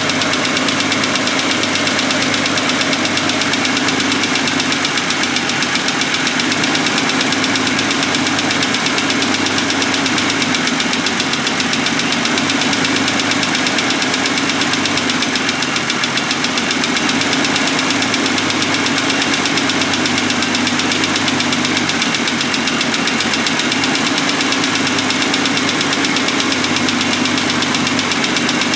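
Car engine idling with a steady, rapid ticking knock that sounds like lifter tick, which the owner traced to a piston: the noise did not change when that cylinder was shorted out.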